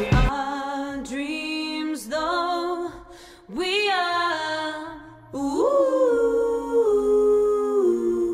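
Stacked female vocal harmonies singing a cappella, after the band drops out just as it starts: about five wordless held notes, each one sliding up into its pitch. The vocals carry a subtle reverb from the vocal bus's reverb send.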